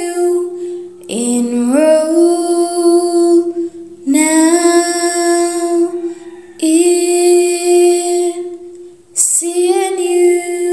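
A woman singing a slow jingle in long, drawn-out notes on nearly one pitch, with a new phrase every two to three seconds, most of them sliding up into the note.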